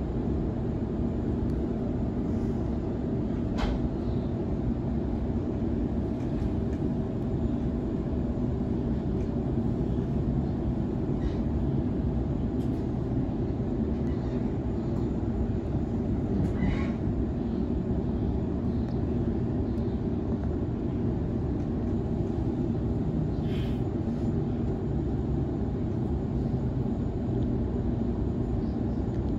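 Sydney Trains Waratah Series 2 (B-set) electric train heard from inside the carriage while running between stations: a steady low rumble. A short click comes about four seconds in, and two brief high squeaks come later.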